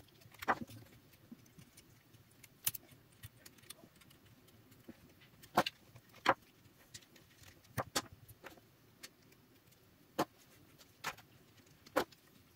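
Small sharp metal clicks and scrapes, about nine of them at irregular intervals, as a screwdriver pries the nickel strips off the 18650 lithium-ion cells of a DeWalt FlexVolt battery pack.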